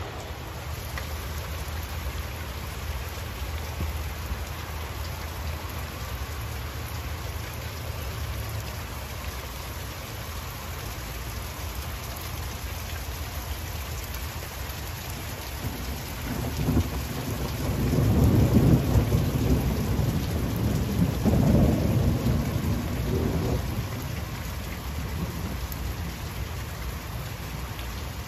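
Steady rain falling throughout. From about two-thirds of the way in, thunder rumbles for several seconds, swelling twice before fading back under the rain.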